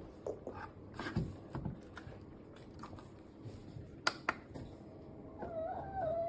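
Scattered light clicks and knocks, with two sharp clicks about four seconds in and a wavering tone near the end.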